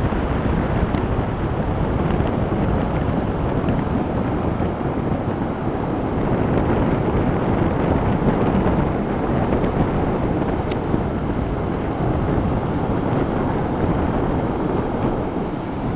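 Steady wind buffeting the microphone, with surf breaking along the shore underneath.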